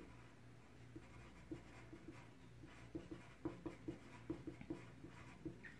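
Coloured pencil writing on paper: faint, irregular short scratching strokes of handwriting, coming thicker in the second half.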